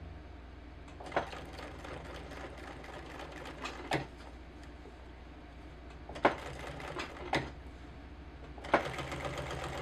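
Sewing machine stitching a zipper onto a jacket: a steady low motor hum with a fast ticking from the needle mechanism, broken by about five sharper clicks.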